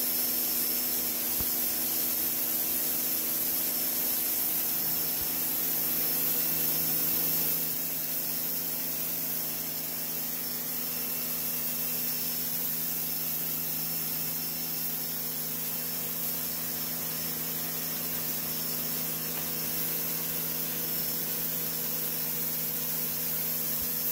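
Electric pressure washer running steadily, its motor and pump humming under the hiss of a 0-degree water jet blasting caked mud off a concrete floor.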